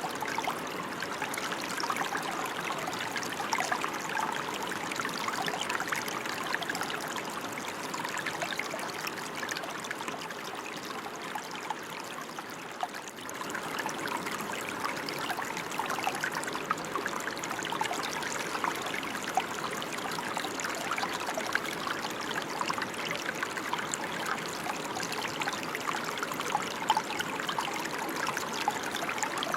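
Steady rain: a dense patter of drops, with a brief dip in loudness about thirteen seconds in.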